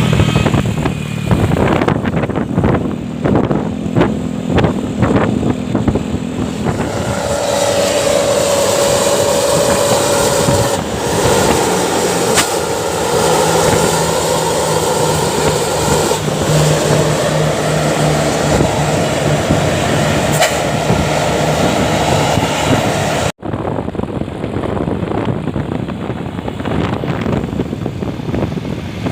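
Road vehicle noise: engines running and traffic on the move. It has knocks and rattles at first, then a steady whine for a few seconds and a lower steady drone. About 23 seconds in it drops out abruptly and resumes.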